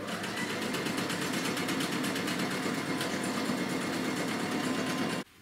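Singer electric sewing machine running at steady speed while stitching, with a rapid, even clatter of stitches. It stops suddenly shortly before the end.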